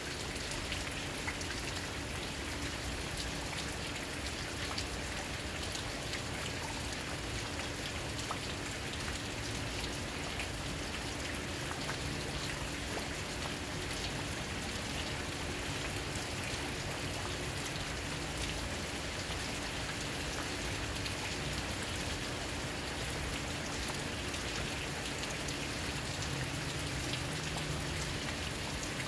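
Steady rain falling outside a window, a continuous hiss of many small drops landing on surfaces.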